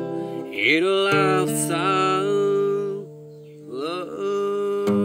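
A man singing a drawn-out, wordless vocal line over a strummed acoustic guitar in a slow country ballad. The sound drops away briefly about three seconds in, then voice and guitar come back.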